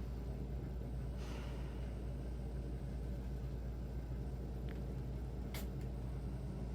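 Steady low background rumble, with a person's breath about a second in and a sharp click near the end.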